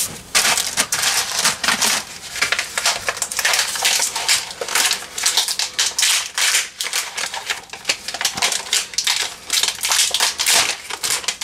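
Plastic food packaging crinkling and rustling as it is handled, a dense, uneven crackle.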